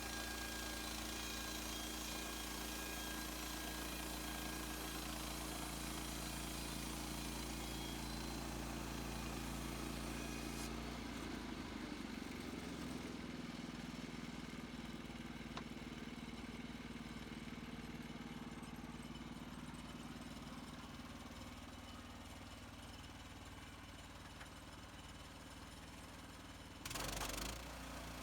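Sawmill engine running steadily. About ten seconds in its tone changes and the high hiss drops away, then it slowly gets quieter, with a brief louder rush of noise near the end.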